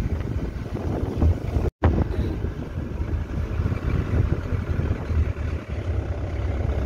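Steady engine and road rumble inside a moving vehicle, with wind buffeting the microphone; the sound cuts out for an instant just under two seconds in.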